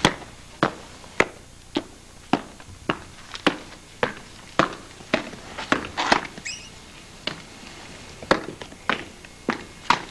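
Footsteps at a steady walking pace, a little under two steps a second, each one a sharp, even knock.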